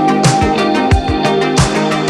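Background music with a steady beat: plucked guitar-like notes over a regular kick drum and hi-hat.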